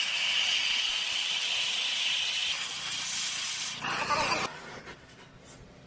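Oxy-fuel cutting torch hissing steadily as it cuts through the steel of a dumper-truck axle housing, with a brief louder rush about four seconds in before the sound drops off sharply.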